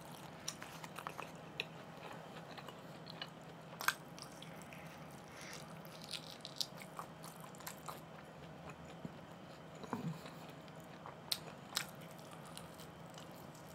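Faint close-up chewing and biting on grilled LA-style beef short ribs, with scattered small clicks and taps, the sharpest about 4 seconds in and a few more near 10 to 12 seconds.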